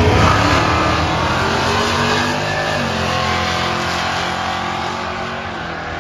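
Drag-racing muscle car launching off the starting line at full throttle. The engine note climbs, drops once about three seconds in at a gear change, and slowly fades as the car runs away down the strip.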